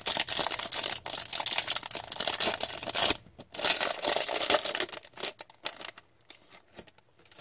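A hockey card pack being opened and handled: the wrapper crinkles and tears while the cards rustle and click against each other. This goes on in two long stretches through the first five seconds, then only a few scattered clicks near the end.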